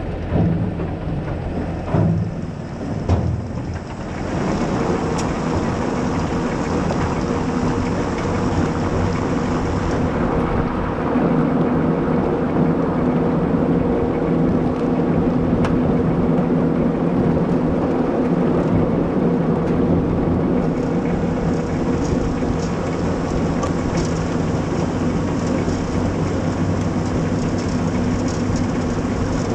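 Carrot harvester at work: a steady machinery drone from the engine and drives, with the rattle of soil and carrots running over the lifting webs. A few knocks in the first few seconds before it settles into a steady run, a little louder from about four seconds in.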